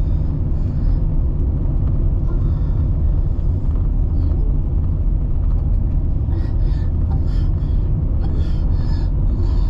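Car driving, heard from inside: a steady low rumble of road and engine noise.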